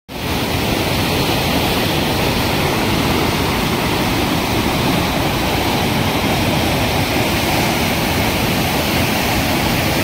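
A river in spate, brown with silt, churning white through rocky rapids: a loud, steady rush of water.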